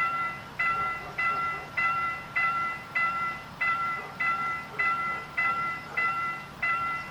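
Railroad level crossing warning bell ringing: an evenly repeated ding, a little under two strikes a second, each strike fading before the next.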